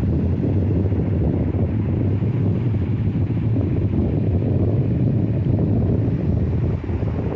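Sea surf with wind buffeting the microphone: a dense, low wash that swells up at the start and eases off near the end.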